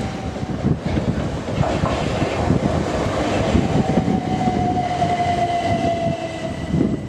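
Electric passenger train running on the line into Dover, with a steady rumble and some clatter. A whine falls slowly in pitch from midway to near the end, as the train slows.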